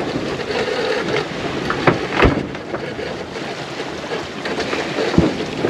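Steady rush of wind and sea around a small sailboat under way, with a few short knocks about two and five seconds in.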